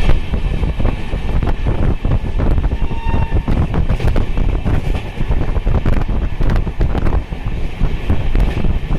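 A passenger train running along the track, heard from aboard: a steady wheel-on-rail rumble with frequent clicks and clatter, and wind buffeting the microphone.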